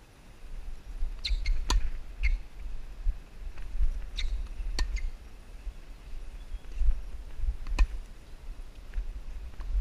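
Tennis rally on a hard court: sharp knocks of the ball off the rackets and the court, the loudest about every three seconds with fainter ones between, over a steady low rumble on the microphone.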